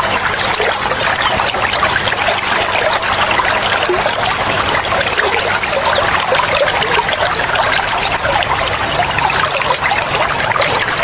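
Water running and pouring steadily, with small birds chirping over it in quick high runs of notes near the start and again about eight seconds in.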